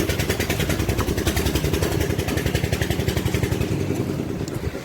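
Concrete mixer's engine running with a fast, even beat of about eight to ten pulses a second, easing off near the end.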